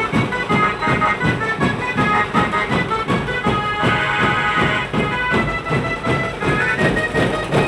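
Band-party music: a reedy electronic-keyboard melody over a fast, steady drum beat.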